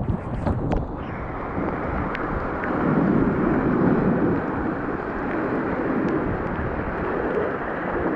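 Fast, high river water rushing near flood stage, a steady rumbling wash with wind-like buffeting on the microphone and a few sharp knocks in the first second.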